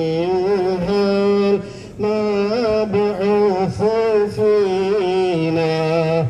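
Background music: a solo voice singing a slow, ornamented melody with long held, wavering notes, in a chant-like devotional style, with a brief pause between phrases about two seconds in.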